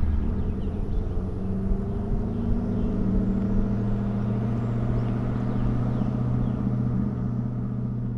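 C5 Corvette's V8 exhaust with a steady drone at constant engine speed.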